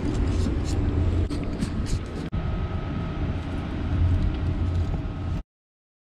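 Steady low rumble of outdoor street traffic with light footsteps on concrete steps, ending in an abrupt cut to silence about five seconds in.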